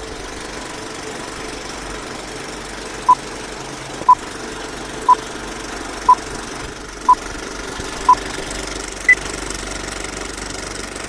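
Vintage film-leader countdown sound effect: a steady film-projector rattle with a short beep every second, six beeps at the same pitch starting about three seconds in, then one higher-pitched beep near the end.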